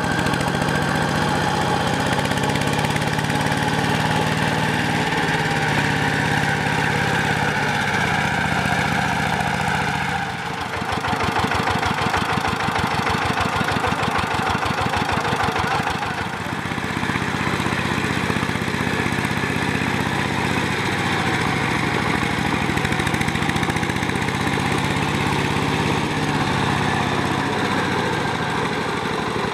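Single-cylinder diesel engine of a two-wheel power tiller running steadily while it works through wet paddy mud, with a fast, even chugging of firing strokes. The tone shifts slightly about a third of the way in and again just past halfway.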